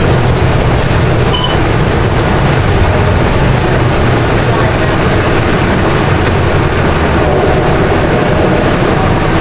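Volvo B10M bus under way, heard from the rear seats: the mid-mounted diesel engine and Voith DIWA 381.4 three-speed automatic gearbox running steadily over road and cabin rattle. A faint whir runs under it, the sound of a drivetrain fault that has gone unrepaired for a year.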